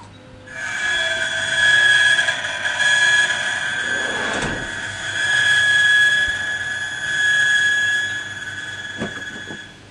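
Key-cutting machine running and cutting a key blank: a steady, high-pitched whine that starts about half a second in and stops just before the end.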